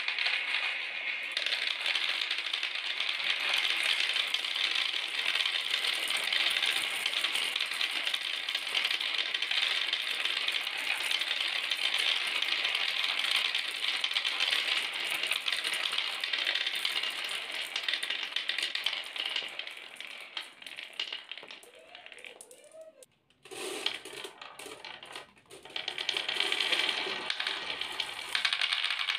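Dozens of marbles clattering and rolling down a homemade marble run of wooden blocks, boards and cardboard cups: a dense, continuous rattle of clicks. It thins out about twenty seconds in, breaks off briefly, then picks up again near the end.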